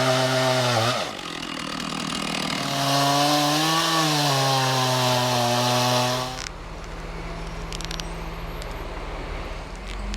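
Chainsaw running at high revs while cutting wood, in two stretches with a dip between them about a second in. It shuts off abruptly about six seconds in, leaving a quieter steady noise with a few faint clicks.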